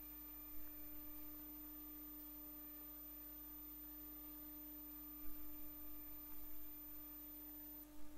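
Pickup-coil recording of a 1996 Tube Stock's GEC Alsthom GTO-VVVF traction inverter: a steady single-pitched hum with fainter overtones, typical of the inverter's asynchronous 300 Hz switching mode. A few brief crackles come about five seconds in.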